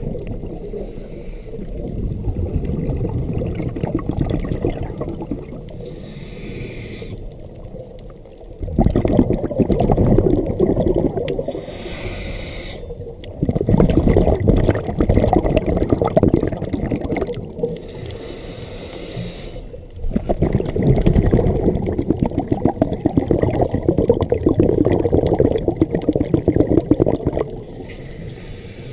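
Scuba diver breathing through a regulator underwater. There are five short hisses of inhaled air, with long, loud bubbling rumbles of exhaled air between them.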